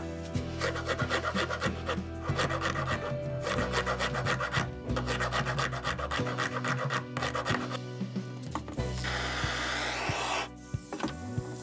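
A rasp scraped quickly back and forth over the wooden handle of an old hand spice mill, stripping its worn finish: fast, rhythmic rasping strokes. Near the end the strokes stop and a steady airy hiss takes over.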